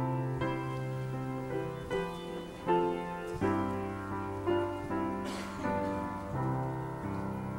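Piano playing the slow introduction to a hymn, in held chords over a steady low bass note, with new chords struck every second or so.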